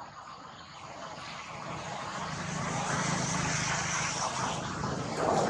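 An engine droning steadily in the background, growing louder over the first three seconds, then holding level.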